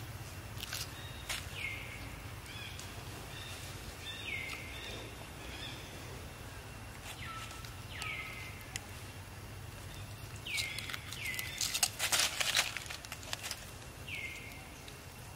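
Short squeaky calls that drop in pitch and level off, about six of them a few seconds apart, over a steady low hum. A cluster of sharp crackles comes a little after the middle.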